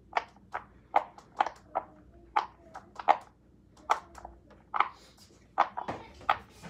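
Bubbles on two round silicone Pop It fidget toys being pressed in by fingers: short, irregular popping clicks, about two a second.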